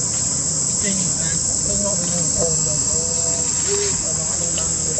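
Insects droning in the forest: one steady, shrill high-pitched buzz that holds unbroken throughout.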